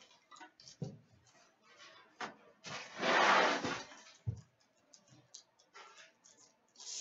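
Hands handling trading-card boxes and packs: light rustles and clicks, two soft knocks on the glass counter, and one louder rustle of packaging lasting about a second near the middle.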